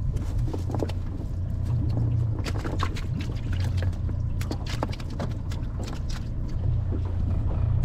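Wet shrimp cast net being gathered and lifted by hand to load it for a throw: scattered light clicks and dripping water from the mesh and its weighted edge, over a low steady hum.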